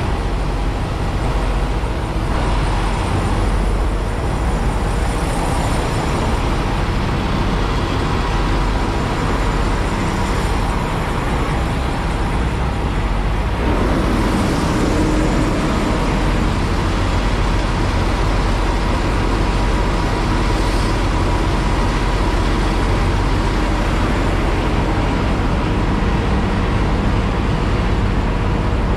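Steady low rumble of heavy vehicle engines and traffic, with a sound that falls in pitch about halfway through.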